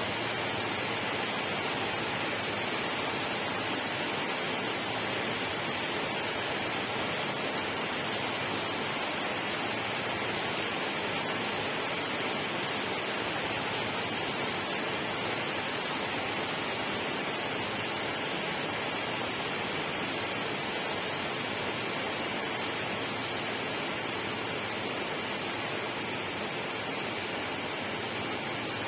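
Steady, unbroken rush of water, an even hiss with no separate drops or splashes.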